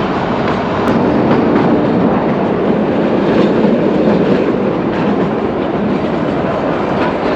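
Narrow-gauge Kalka–Shimla toy train running, heard from aboard: a steady rumble of the coaches with the wheels clacking over the rail joints.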